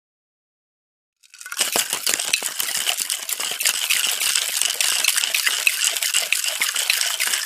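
Cocktail shaker being shaken hard: a continuous, dense, rapid rattle of its contents, starting about a second in.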